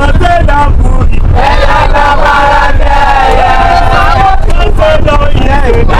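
A group of young men singing a chant together inside a bus, with several voices overlapping, over the steady low rumble of the vehicle.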